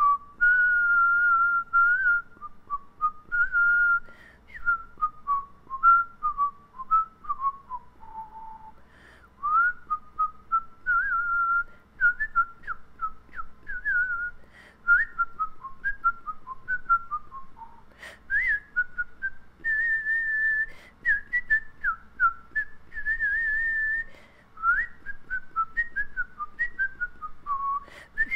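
A person whistling a tune with no accompaniment: a single melodic line of short notes, slides and held notes, with a brief pause partway through.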